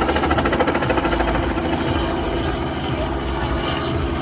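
Helicopter overhead, its rotor making a fast, steady chop.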